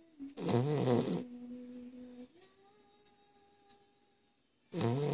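Heavy snoring in sleep: one loud snore about half a second in, lasting under a second, then quiet breathing and another loud snore starting near the end.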